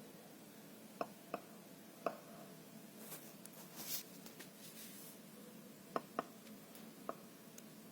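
Faint snoring breath of a sleeping Doberman: one hissing breath from about three to four and a half seconds in, set among several small sharp clicks.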